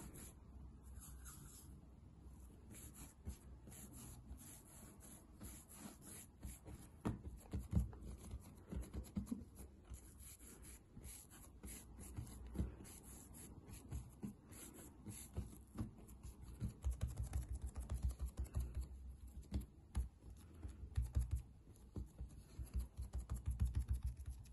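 Hands rolling a log of soft cookie dough back and forth on a marble countertop: soft rubbing with quick low taps, coming faster in the second half.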